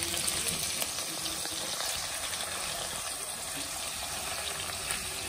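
Country chicken pieces frying in oil in a pan: a steady sizzle with faint scattered crackles.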